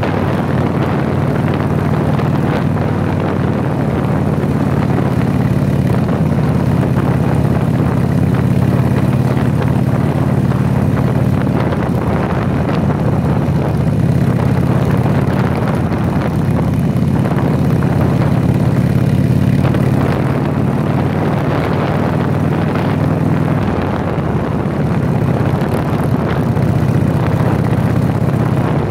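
Harley-Davidson Sportster V-twin engine running steadily at cruising speed under way, heard from the bike itself. Briefly eases off about three-quarters of the way through, then picks up again.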